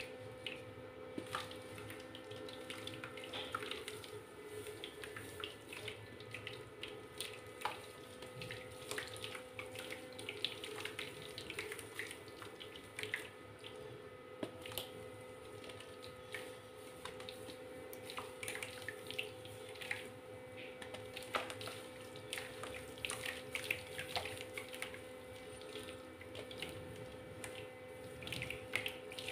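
Hands swishing and squeezing soft mud in a basin of water: an irregular stream of small splashes, drips and wet crackles as the lumps crumble.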